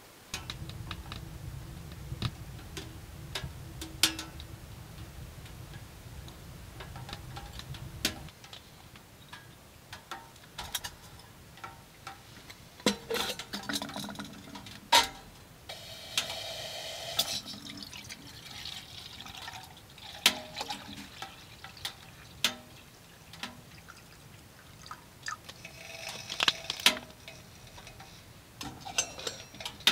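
Wood fire crackling inside a small steel wood stove, irregular sharp pops and ticks, with liquid sounds from the water on the stovetop.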